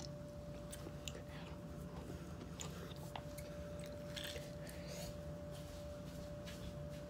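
Faint scattered clicks, taps and scrapes of kitchen containers and utensils being handled, over a steady low electrical hum.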